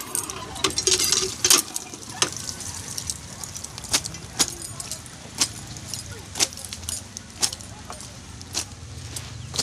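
Clothes being washed by hand on a stone slab: a wet garment scrubbed and pressed against the stone, with sharp clicks that come in a busy cluster in the first two seconds, then about once a second.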